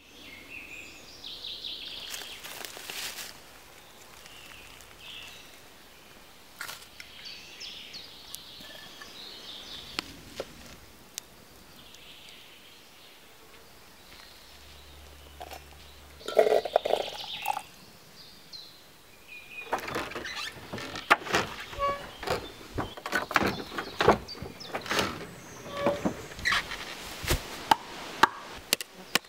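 Forest ambience with faint bird chirps over the first stretch, a short louder burst of sound around the middle, then a long run of sharp knocks and clicks in the last third.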